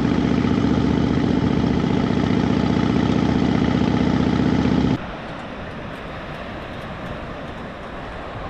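Harley-Davidson Fat Bob's V-twin engine running steadily while riding. About five seconds in it cuts off suddenly, leaving a quieter steady hiss of wind and surf.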